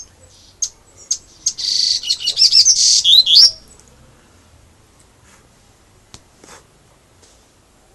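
Coleiro (double-collared seedeater) giving a few short chips, then a rapid run of high song notes lasting about two seconds, in the song style that Brazilian keepers call "canto grego". After about three and a half seconds only a couple of faint clicks follow.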